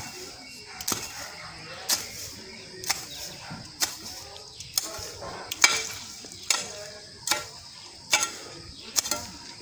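A hoe chopping into soil and grass, about one strike a second, each a sharp hit.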